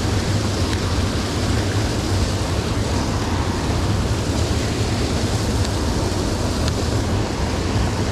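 Spillway water pouring steadily over a weir: a constant deep rush of falling, churning water, with the flow running high.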